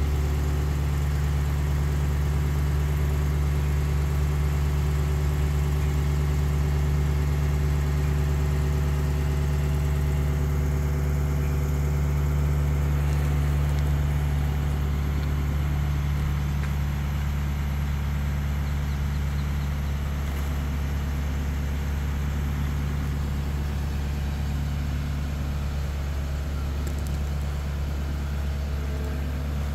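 Tadano ATF 100G-4 mobile crane's diesel engine running with a steady low drone as the crane holds and swings a suspended catamaran; the sound eases a little about halfway through.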